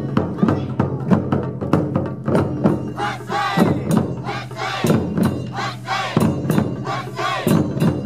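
Japanese taiko drum ensemble playing, drumsticks striking drums of several sizes in a fast, driving rhythm. From about three seconds in, the drummers shout rhythmic kakegoe calls over the drumming.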